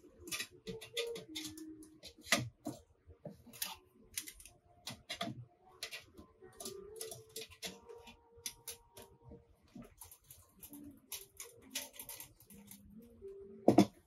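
Thin stainless-steel panels of a B-6君 folding mini grill being unfolded and fitted together by hand: a string of light metallic clicks, clinks and small knocks, with the loudest clack near the end as the assembled grill is set down on its legs.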